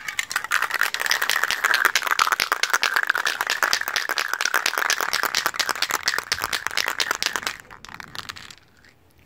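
Aerosol spray paint can being shaken hard, the mixing ball clacking rapidly inside to mix the paint before spraying. The rattle stops about seven and a half seconds in.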